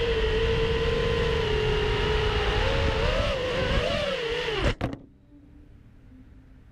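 FPV quadcopter's brushless motors and Ethix S5 propellers whining in flight, the pitch wavering near the end. About four and a half seconds in, a short clatter as the quad hits the wooden stair, and the motors cut out: the battery died.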